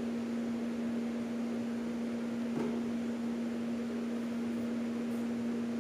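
A steady background hum with a faint hiss: room tone. No sewing machine is running.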